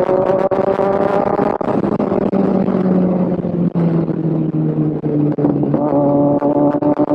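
Kawasaki Z1000's inline-four engine running while riding, its pitch rising slightly and then easing lower about halfway through.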